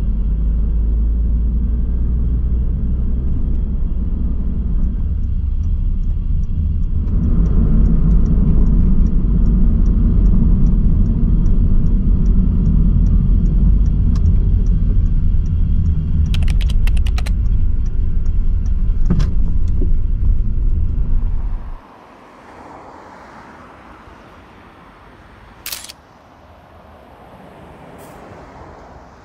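Steady low rumble of road and engine noise inside a moving car's cabin, with a light regular ticking over part of it. About 22 seconds in it cuts off suddenly to a much quieter background, broken by a couple of sharp clicks.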